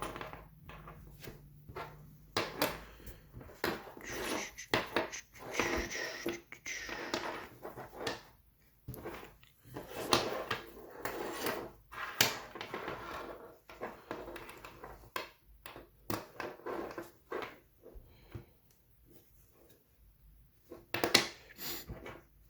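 Hands working an elastic strap and safety pins at close range: irregular small clicks, taps and rustles, with a louder knock near the end.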